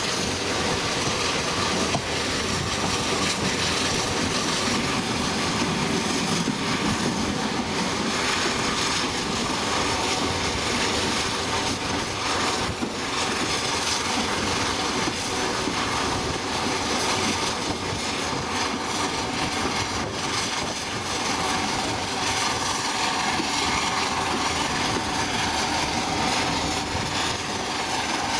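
Steam locomotive running along the line, heard from its footplate: a steady, continuous running noise of the engine and the wheels on the rails.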